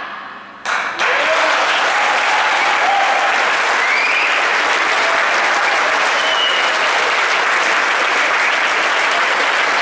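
Audience applauding, breaking out sharply about a second in after a short hush and then going on as steady, loud, dense clapping.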